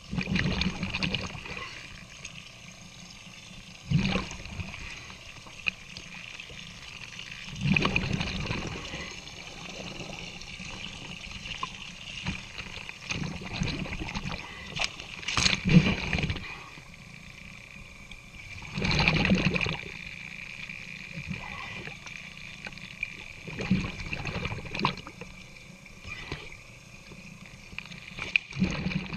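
Water splashing and bubbling against a boat hull as a diver scrubs it at the waterline, in loud surges every few seconds, over a faint steady high whine.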